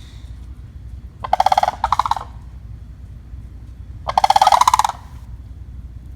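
Sandhill cranes giving loud, rolling, rattling calls: a broken call about a second in and a second call about four seconds in, each lasting about a second.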